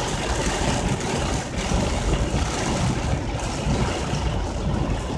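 Heavy storm rain beating steadily on a car's roof and windshield, heard from inside the car: a dense, unbroken noise with a strong low rumble.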